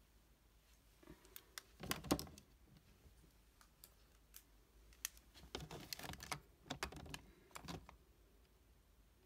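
Small plastic blush compacts clicking and clattering against each other and a plastic mesh drawer organizer as they are put away by hand: a cluster of clicks about two seconds in, then a longer run of clicks from about five to eight seconds.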